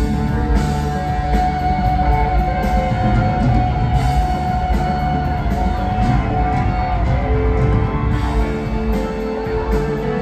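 Rock band playing live: electric guitars, keyboards and drums, with long held notes over a steady beat and a held note shifting lower about seven seconds in.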